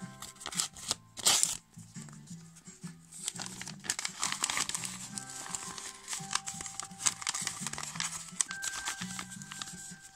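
Paper envelope crinkling and tearing as it is ripped apart by hand, with a loud rip about a second in and bursts of crackling after it. Background music with a steady bass pattern runs underneath.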